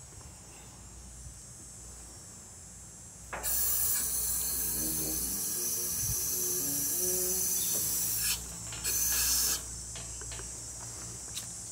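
Lift table being lowered, its air release hissing: one long hiss of about five seconds starting a few seconds in, then a second short hiss.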